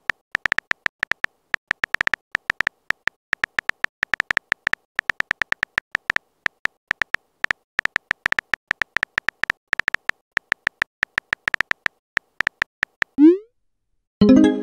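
Phone keyboard typing sound effect: quick, irregular clicks, several a second, as a text message is typed out. Near the end comes a short rising whoosh, then a brief pop as the message is sent.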